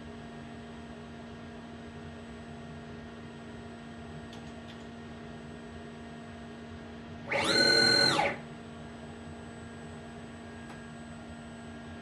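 CNC lathe's Z-axis drive motor whining through a rapid traverse of about a second, its pitch sweeping up as the carriage accelerates and back down as it stops at 26 mm. A steady electrical hum runs underneath.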